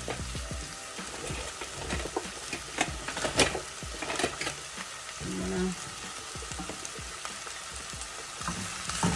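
Diced carrots, onions and red pepper sizzling in hot avocado oil in a small Dutch oven as they start to cook down, with sharp crackles here and there, the loudest about three and a half seconds in.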